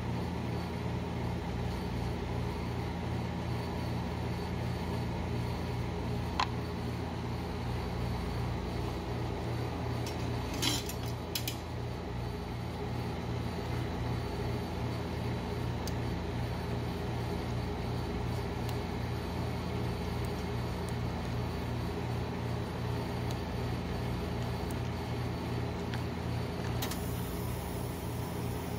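Steady hum of a rolled ice cream machine's refrigeration unit running under its steel cold plate. A metal spatula clicks against the plate a few times, about six seconds in and again around eleven seconds.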